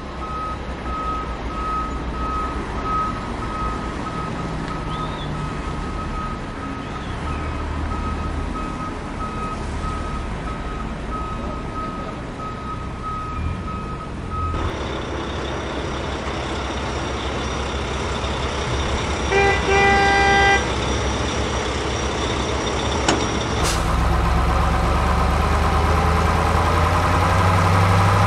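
Truck sounds: a steady diesel-like engine rumble with a rapidly repeating reversing beep. About two-thirds of the way in come a few short horn toots, and near the end a louder engine rumble.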